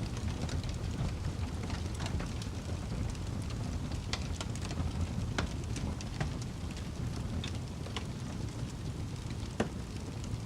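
Fire burning with scattered sharp crackles and pops over a low steady rumble, one louder pop near the end.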